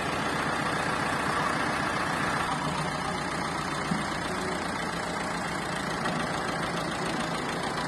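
Ford farm tractor's engine running steadily at idle, with a small click about four seconds in.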